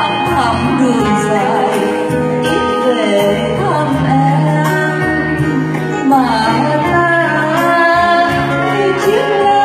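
A woman singing a Vietnamese song into a microphone, holding notes with vibrato, with live keyboard and guitar accompaniment.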